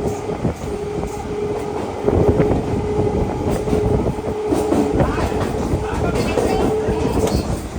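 Train running along the track, the wheels clicking over rail joints under a steady rumble, with a steady humming tone from about a second in until near the end.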